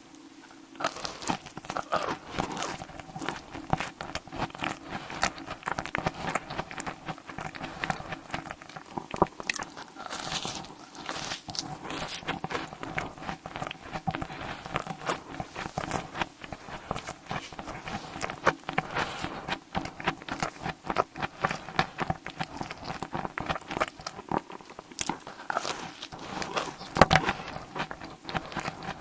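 Close-miked eating: a dense run of crisp crunching bites and chewing, with one especially loud crunch near the end.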